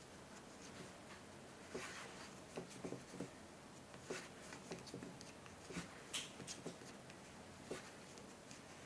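Wooden knitting needles and yarn being worked by hand, stitch by stitch: faint, irregular small clicks and rubbing.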